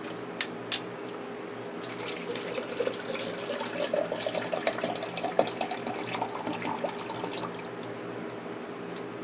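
Two light clicks, then water pouring into a shaker cup for about five seconds, the pitch of the pour rising as the cup fills.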